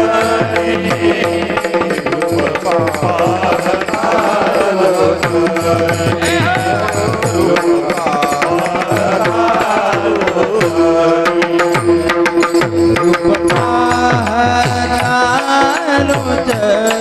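Devotional bhajan music: a hand drum playing repeated strokes with falling bass notes, under a steady held drone and a winding melody with no words.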